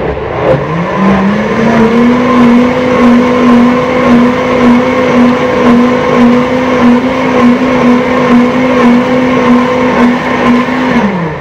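Waring commercial blender motor spinning up over about two seconds to full speed and running steadily, churning a liquid slurry of kitchen-scrap compost, then winding down just before the end.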